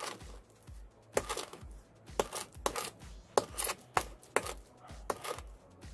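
Masonry trowel scraping and tapping as wet cement mortar is pressed and smoothed onto the side of a vase form: a series of short, sharp scrapes and clicks, about two a second.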